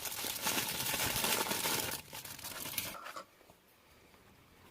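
Crinkling and rustling of wrapping being handled, with many small clicks, for about two seconds, dying away by about three seconds in.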